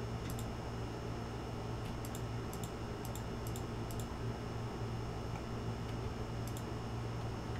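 Light clicks from a computer mouse and keyboard, about a dozen spread over several seconds and many coming in quick pairs, over a steady low electrical hum.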